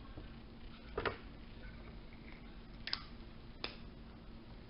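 Small plastic toy packages handled by hand: three short, light clicks and taps, about a second in and twice near the end, over a faint steady hum.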